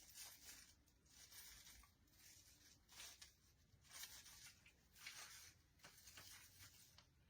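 Faint, intermittent rustling and scraping of an artificial pine swag and ribbon being handled, in short bursts about once a second.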